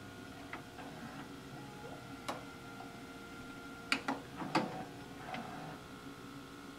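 Zenith XBV713 DVD/VHS combo's VCR tape transport shifting from rewind to play: a faint steady whir under about half a dozen sharp mechanical clicks from the front-panel buttons and the mechanism engaging, the loudest a little before the middle and just after it.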